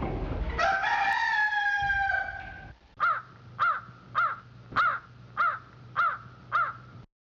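A rooster crowing one long call, then a bird giving seven short, evenly spaced chirps, about one and a half a second, that stop abruptly.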